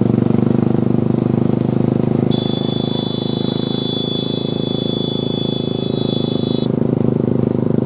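A vehicle engine running steadily. A steady high-pitched tone sounds over it for about four seconds, starting about two seconds in.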